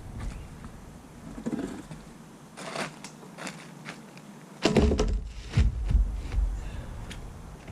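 Scattered knocks and clatter, then several heavy thumps a little over halfway through, like objects being handled and set down.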